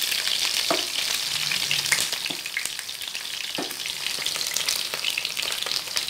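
Eggplant pieces shallow-frying in hot oil in a pan: a steady sizzle, with a wooden spatula stirring and turning them and a few sharp clicks.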